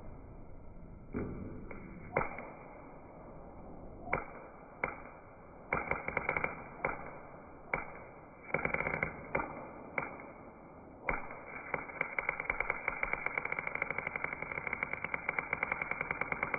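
Arc welder crackling: a few isolated sharp pops and short sputtering bursts as the arc is struck and breaks, then about two-thirds of the way in a steady, fast crackle as a continuous bead is run.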